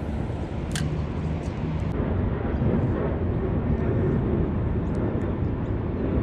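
Low, steady rumble of a distant engine that grows louder about two seconds in, with one light click just under a second in.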